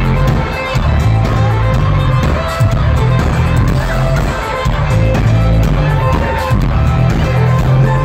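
Live band music played loud through a concert sound system, heard from among the audience, with a heavy low end pulsing in a steady pattern.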